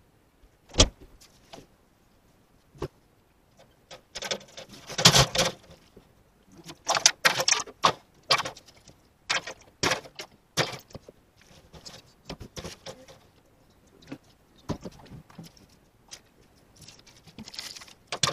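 Irregular knocks, clatters and rustling of things being handled and moved about inside a pickup truck's cab as it is cleaned out, with a sharp knock about a second in and busier handling from about four seconds in.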